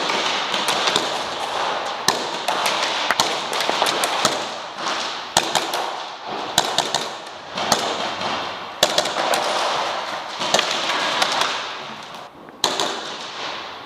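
Airsoft guns firing: many sharp pops coming in quick, irregular bursts throughout.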